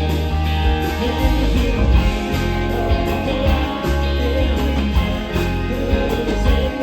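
Live band playing an instrumental passage, guitar to the fore over a steady bass line and a regular drum beat.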